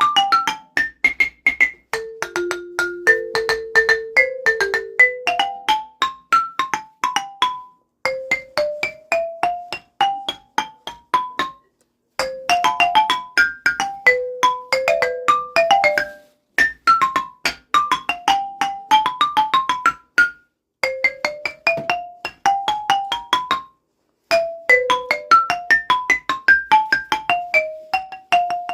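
Marimba played in fast runs of short struck notes, a melody in phrases broken by brief pauses, with ringtone tunes worked into it.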